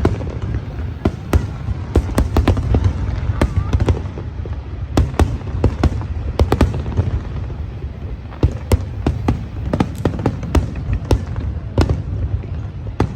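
Fireworks exploding: many sharp bangs, a few each second and irregularly spaced, over a continuous deep rumble of overlapping distant bursts.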